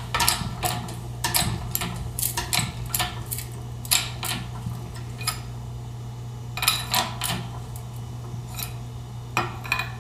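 Hand-pumped hydraulic shop press pressing studs back through a backing plate assembly: sharp metallic clicks and clinks come in short clusters every second or so as the pump handle is worked.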